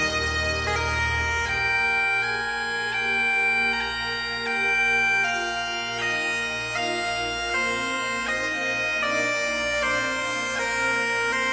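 Bagpipes playing a tune: steady drones under a chanter melody that steps from note to note.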